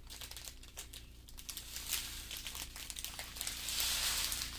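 Small plastic bags of diamond painting drills crinkling as they are handled, a run of quick crackles, busier near the end.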